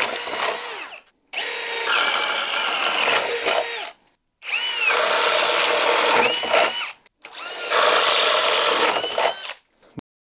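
Cordless drills boring a 1-1/4-inch spade bit through 2x lumber in drill mode, one after another: the Ridgid high-torque hammer drill's run ends about a second in, then three more runs of about two and a half seconds each, the third by a Bosch drill. Each run is a motor whine with the bit chewing through wood, its pitch rising as the drill starts and falling as it stops.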